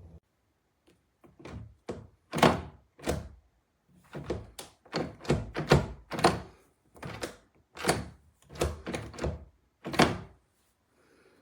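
Passage-function interior door lever handle and latch being worked: a quick, irregular series of about eighteen knocks and clicks over roughly eight seconds.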